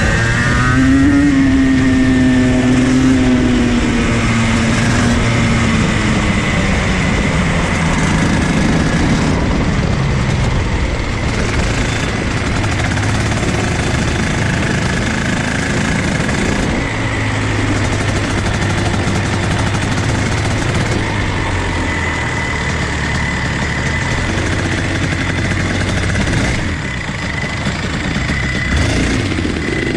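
Rotax Max two-stroke kart engine coming off the throttle, its note falling over the first few seconds as the revs drop. It then runs at low revs, close to idle near the end, as the kart rolls slowly.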